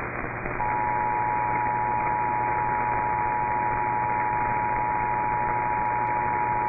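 Emergency Alert System two-tone attention signal: two steady tones sounding together, starting about half a second in and holding unchanged over steady radio hiss. It is the alert tone that announces an incoming emergency warning broadcast.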